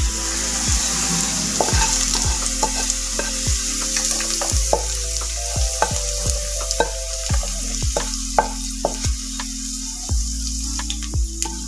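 A spatula scraping and knocking against a metal frying pan as fried diced potatoes are pushed out into a steel bowl, with many short sharp knocks. Hot oil in the pan sizzles, more strongly in the first few seconds.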